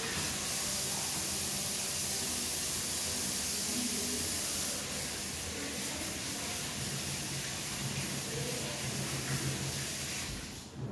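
Kitchen tap running in a steady stream as hands are washed under it, shutting off near the end.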